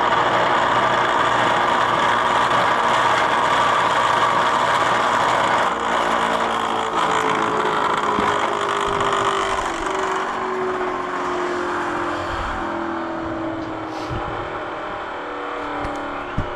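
Small electric bench grinder running and grinding metal, then winding down: its hum falls slowly in pitch and fades over several seconds. The owner says the grinder has a bad motor. A couple of sharp knocks near the end.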